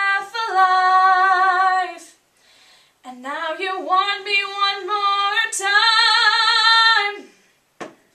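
A teenage girl singing solo and unaccompanied, holding long notes with vibrato in two phrases with a short break about two seconds in.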